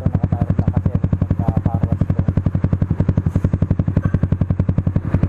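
Motorcycle engine idling through an aftermarket muffler, a steady, even pulsing exhaust note of about a dozen beats a second.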